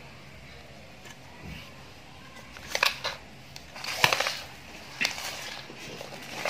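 A hand mixing raw chicken pieces into masala paste with sliced onion and tomato: a few short, crackly bursts of wet handling noise, the loudest around three and four seconds in.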